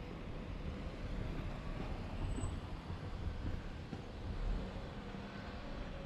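Low, steady rumble of a motor vehicle engine, with faint street noise.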